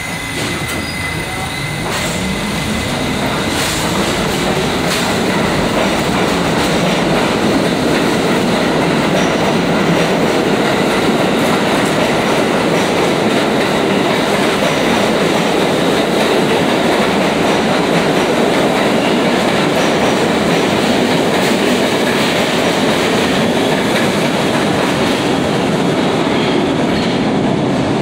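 R68 subway train pulling out of an underground station: a motor whine rises in pitch over the first few seconds as it accelerates. The cars then run past loudly and steadily until the last one clears the platform.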